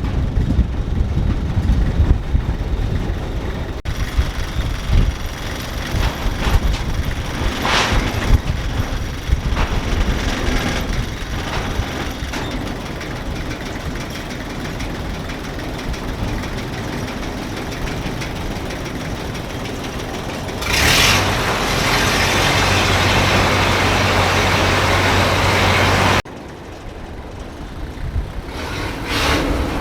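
Engine running with a steady rumble, heard in several edited pieces. About two-thirds of the way through, a louder, steady engine hum sets in for about five seconds and then cuts off suddenly.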